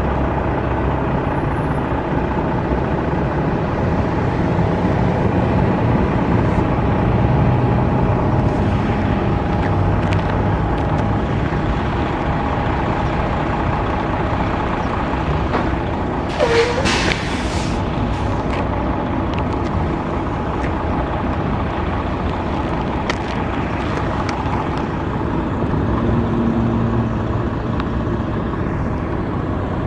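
Road traffic passing steadily, with a short, loud hiss about halfway through.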